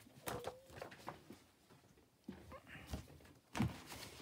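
Large paper pages of a hardcover picture book being turned by hand: soft rustles and light flaps, with a firmer thump of a page landing near the end.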